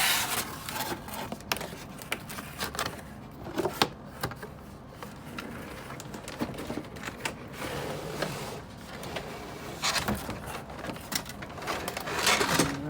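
A cardboard box being opened and unpacked by hand: irregular rustling, scraping and light knocks of cardboard and packaging, busiest near the end.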